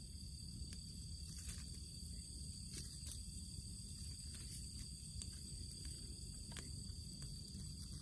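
Wood campfire crackling, with scattered sharp pops from the burning wood, over a steady high-pitched chorus of night insects such as crickets.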